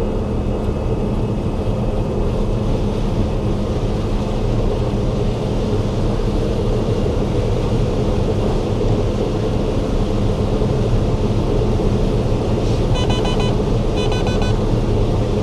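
Combine harvester running steadily while harvesting corn, a constant engine and threshing drone. Near the end come two quick runs of electronic beeps, fitting a grain-tank-full alert.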